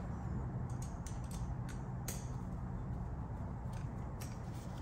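Faint, scattered metal clicks and ticks of a long Allen key turning a bolt being threaded into the HydroMax motor's front, over a steady low hum.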